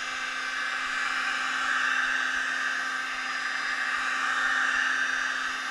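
Hot air gun running steadily: a constant rush of blown air with a faint steady whine, heating a phone screen's edge to soften its water-resistant adhesive.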